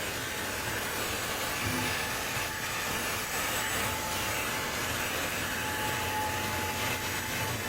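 Fanttik Slim V8 APEX cordless handheld car vacuum running steadily, a constant rush of air from its motor. A faint high whine joins it about halfway through.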